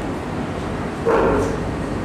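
A dog barks once, briefly, about a second in, over a steady background hum.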